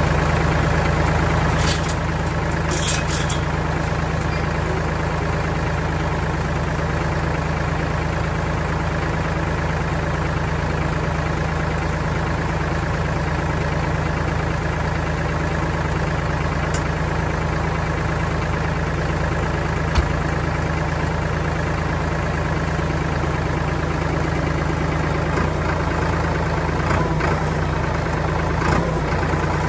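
Farm tractor engine running at a steady speed, driving a logging winch as it tugs on a tree by cable. A few brief high squeaks come about two to three seconds in.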